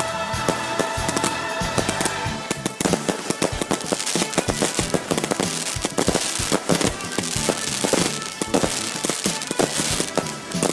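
Aerial fireworks bursting: scattered pops at first, then from about two and a half seconds in a dense, rapid run of bangs and crackling.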